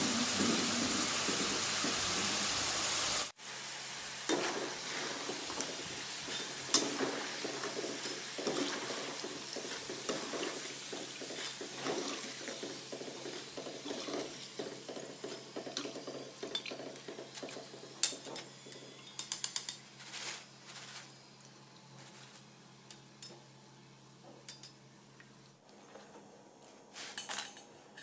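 Potato fries deep-frying in hot oil in a metal wok, sizzling, with a metal skimmer and mesh strainer scraping and clinking against the pan. The sizzle is loud for the first few seconds, then drops suddenly and goes on quieter with scattered clinks, thinning out as the fries are lifted from the oil.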